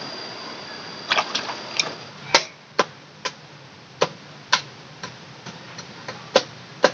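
Machete chopping and splitting wood on a log: a string of sharp, separate chops, roughly two a second, starting about a second in.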